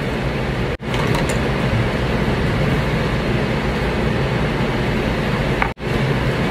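Steady hiss of background noise, broken by two brief dropouts, about a second in and near the end.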